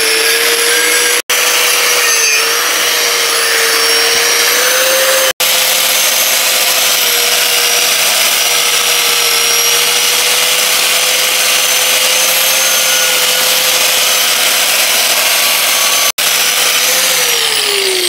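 Electric angle grinder with an abrasive disc running steadily, grinding rust and brake dust off a rear brake drum and brake backplate. It gives a high, steady whine over a rough scraping hiss, and near the end it winds down with a falling pitch.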